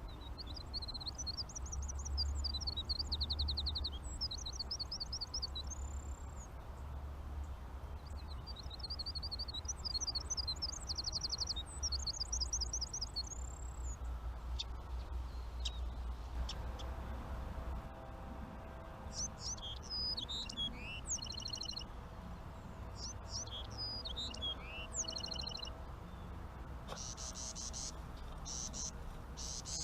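Songbirds singing: two long phrases of rapid, high trills in the first half, then shorter, sharper calls a little past the middle, over a low steady rumble.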